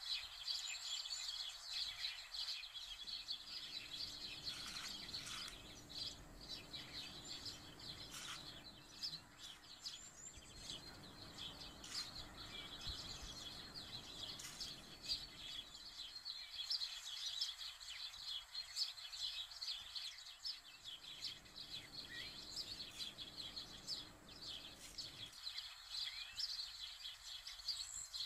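Birds chirping continuously, many short high calls overlapping.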